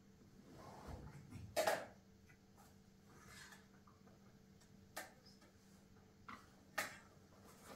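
A few light knocks and clicks of objects being handled and set down on the floor, the loudest about a second and a half in and three more near the end, over a faint steady hum.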